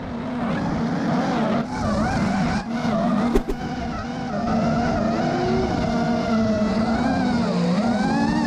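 Drift cars' engines revving up and down while their tyres skid sideways, with one sharp knock about three and a half seconds in.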